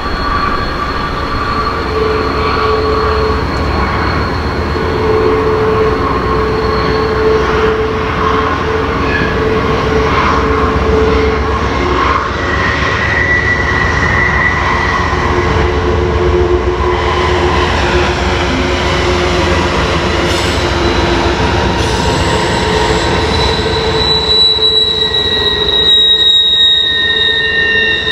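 Amtrak passenger train rounding a tight curve, its wheel flanges squealing on the rail in several steady high tones over a low locomotive rumble. Near the end the rumble drops away while the squealing carries on.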